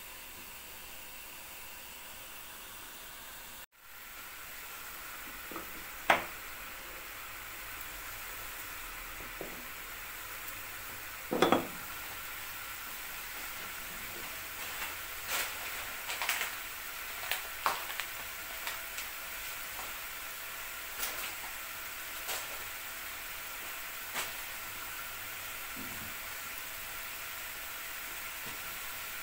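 Steady hiss of cooking on a gas stove: first a pan of carrots simmering in a little water, then, after a brief break, a steel pot of water heating over the gas flame. Scattered light clicks and taps come through the hiss, the loudest about six and eleven seconds in.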